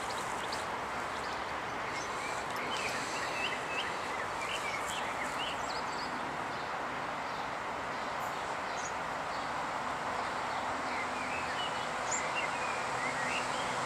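Small birds chirping over a steady outdoor background hiss. In the last few seconds the faint hum of an approaching electric train rises underneath.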